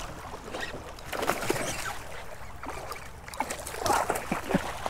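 Water splashing as a hooked sheepshead thrashes at the surface beside a canoe, in irregular splashes with short knocks, loudest about a second in and again near the end.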